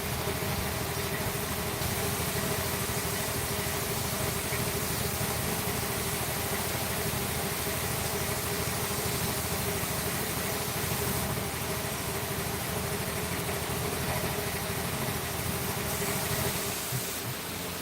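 A machine motor running steadily with a constant hum, dropping off near the end.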